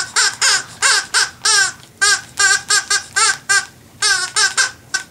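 A high, squeaky voice laughing in a long run of short, quick syllables, about three a second, stopping just before the end.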